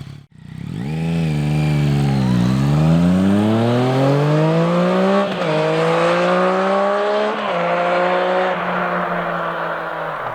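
Yamaha MT-09 three-cylinder engine accelerating through the gears, its exhaust note climbing in pitch and dropping back at upshifts about five and seven and a half seconds in, then holding at a steadier speed. There is a brief cut in the sound just after the start.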